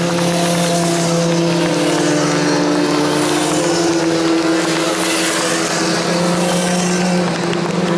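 Racing sport motorcycles' engines running hard at high revs: a loud, steady engine note with a slight rise in pitch around the middle.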